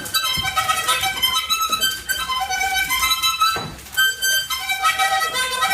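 Harmonica playing a quick tune of short, changing notes.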